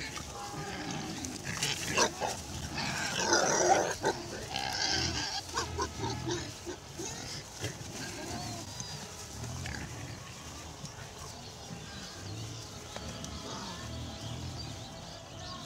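A herd of wild boar grunting and squealing. A burst of loud, high squeals comes in the first few seconds, then repeated low grunts while they feed.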